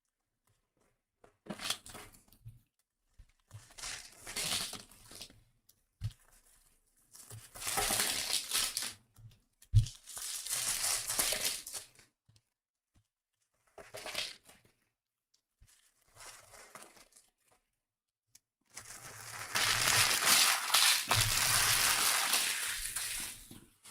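Foil wrappers of Topps Chrome baseball card packs being torn open and crinkled in the hands, in a series of bursts, the longest near the end, with a couple of sharp knocks in between.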